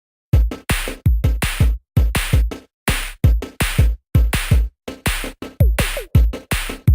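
Electronic music with a heavy drum-machine beat: booming bass kicks with falling pitch and bright snare hits, several a second.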